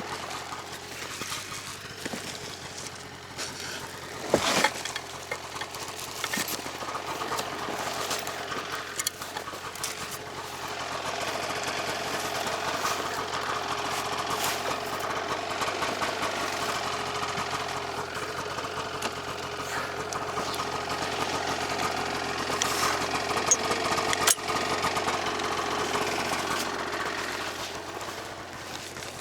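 An engine running steadily, getting louder about ten seconds in and staying up until near the end, with a couple of sharp knocks along the way.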